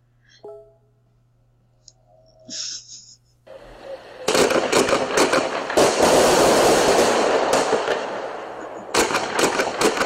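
Fireworks going off: a building hiss about three and a half seconds in, then loud, dense crackling and popping for several seconds, with a fresh burst of sharp cracks near the end.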